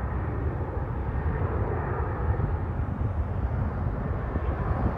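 Distant jet aircraft engine noise carrying across an airfield, a steady rumbling sound with no clear rise or fall.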